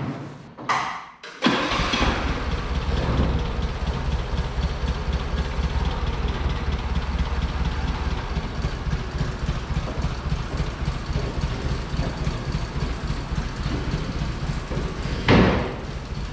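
An engine starts up after a couple of short knocks and settles into a steady idle with a fast low pulse. Near the end there is a short loud rush of noise.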